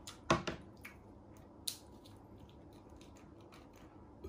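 A few sharp clicks and taps from a ceramic mug and a small paper milk carton being handled on a wooden tray, the loudest about a third of a second in, then fainter ticks.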